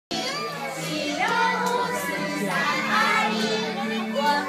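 A group of young children singing together, many small voices overlapping.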